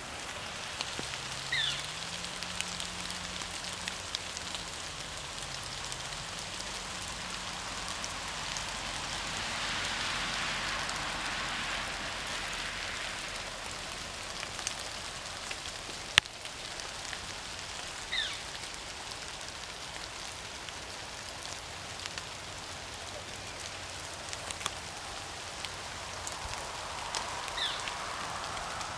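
Steady rain falling, swelling for a few seconds about ten seconds in. A few short high chirps and one sharp click sound over it.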